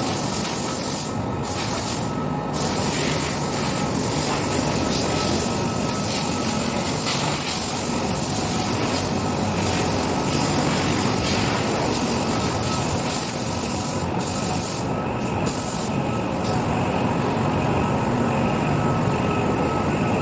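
Steady, loud rushing hiss from a cleaning jet working over a large milling machine, with a faint high whine running under it.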